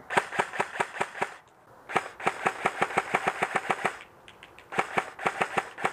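Classic Army ECS M4 airsoft electric rifle firing rapid single shots, about seven or eight a second, in three quick strings with short pauses between: its micro-switch MOSFET trigger being spammed on semi-auto.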